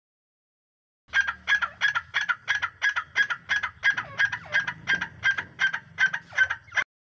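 Partridge calling: a fast run of sharp, repeated notes, about three a second, starting about a second in and cutting off suddenly just before the end.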